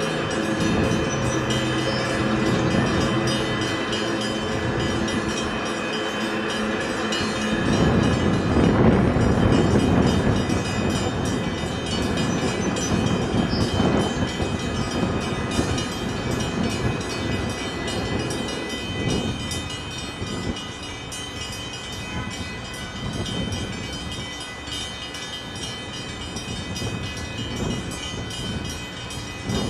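Diesel engines of a tugboat pushing a grain barge, a steady low drone. About eight seconds in it swells into a louder rushing noise, which eases off after about eighteen seconds.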